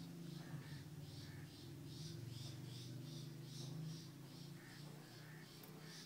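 Steady low hum of a clustered honey bee swarm, with a short high chirp repeating about three times a second over it.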